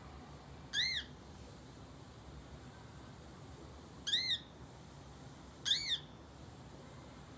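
Bird calls: three short whistled calls, each rising and then falling in pitch, about a second, four seconds and six seconds in.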